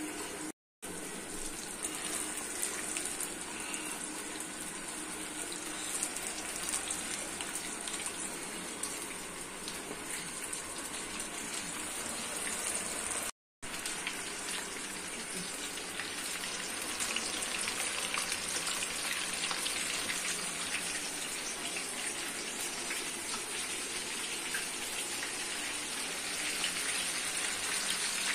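Flour-coated chicken pieces deep-frying in hot sunflower oil: a steady, dense crackling sizzle, cut off twice for a split second.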